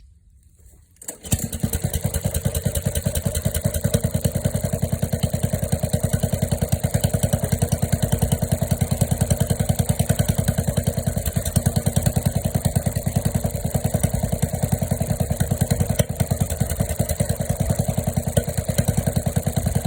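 Diesel engine starting about a second in and settling into a steady, loud idle, with a fast even exhaust pulse through a newly fitted 2-inch exhaust with tip.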